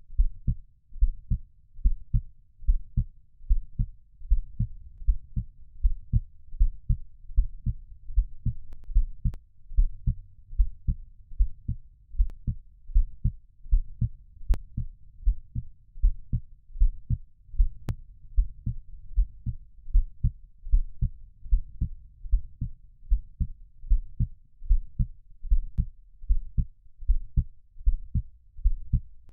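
Heartbeat sound for soothing a baby to sleep: a steady, even rhythm of low, deep thuds that repeats without a break.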